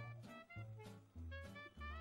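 Faint instrumental background music with a jazzy, bouncy beat and a low bass line.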